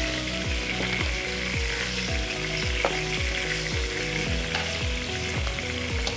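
Hot oil sizzling in a frying pan as browned chicken pieces are lifted out with a fork, with two light clicks of the fork against the pan near the middle. Background music with a steady beat plays underneath.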